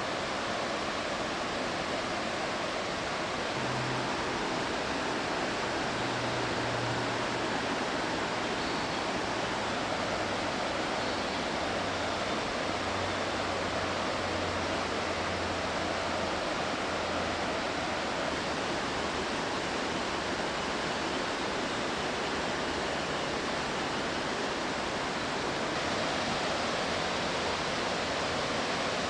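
Waterfall pouring steadily, a constant rush of falling water. A faint low hum comes in about four seconds in and fades out a little past the middle.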